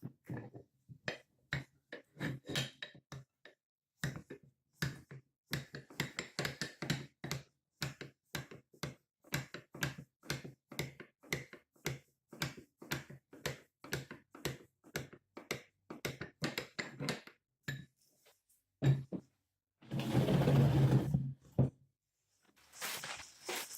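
A long run of short metal taps and scrapes, often two or three a second, from hand work on an antique nail puller. About 20 seconds in comes a loud burst of noise lasting about two seconds.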